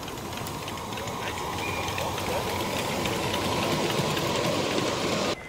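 A 5-inch gauge live-steam model of Rio Grande locomotive No. 491 running along the track, a dense rattling mechanical sound that grows louder as it approaches and cuts off suddenly near the end.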